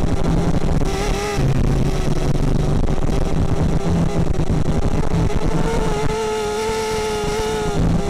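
Multicopter's electric motors and propellers whining, heard through the onboard camera's microphone with heavy wind buffeting over it. The whine rises briefly about a second in and holds a steady pitch from about six seconds in to near the end.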